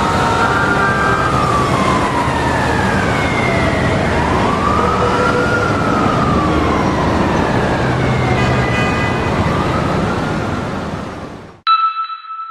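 A siren wailing slowly up and down over loud, steady road noise. It cuts off suddenly near the end and a single ringing chime follows.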